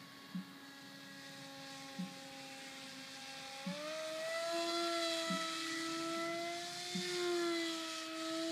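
Upgraded brushless electric motor and propeller of a Bixler 2 RC model plane in flight, a steady whine that steps up in pitch and gets louder about three and a half seconds in as the throttle is opened toward full power. Faint short ticks come about every one and a half seconds.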